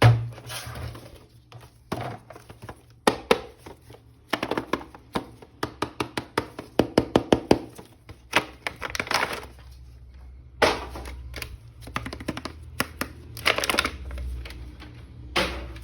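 Hands handling and opening plastic toy packaging: a run of sharp clicks and taps, with several short bursts of crinkling plastic.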